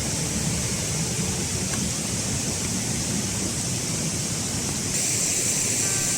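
Steady rushing of a waterfall, turning a little louder and hissier about five seconds in.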